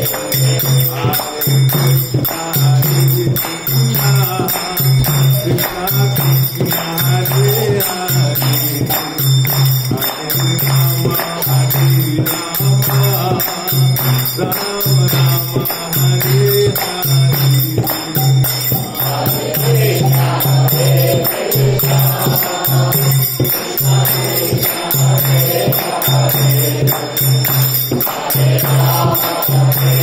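Devotional kirtan-style singing with a low beat about once a second and repeated jingling strokes, as of hand cymbals.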